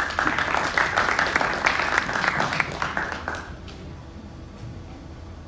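Audience applauding, dying away after about three and a half seconds.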